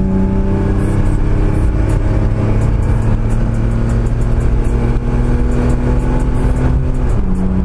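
Chevrolet Omega's 4.1-litre straight-six accelerating, heard from inside the car. The engine note climbs slowly and steadily, then drops suddenly near the end as the automatic gearbox shifts up.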